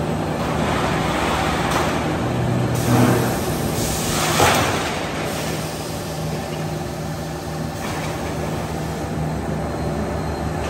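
Roll forming line for corrugated roofing sheet running with a steady machine hum. Two brief louder bursts of hissing, clattering noise come about three and four and a half seconds in.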